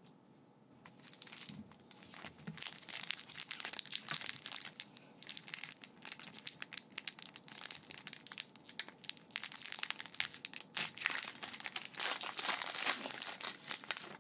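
Foil booster-pack wrapper crinkling and being torn open by hand, a dense crackling that starts about a second in and keeps going.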